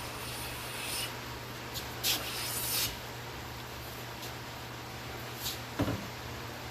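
Wood being handled and rubbed: short scraping and sliding noises in the first three seconds and a single knock near the end, over a steady low hum.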